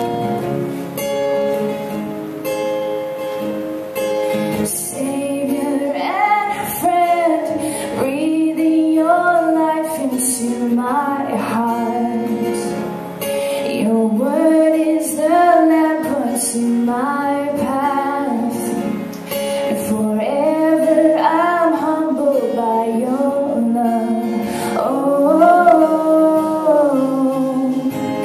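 Strummed acoustic guitar accompanying a woman's singing voice, which comes in about five seconds in, in a live worship-song performance.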